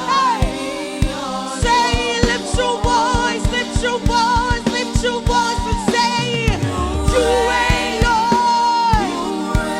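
Live gospel worship music: sung notes held and wavering over a band playing a steady beat, with the bass coming in more strongly about two thirds of the way through.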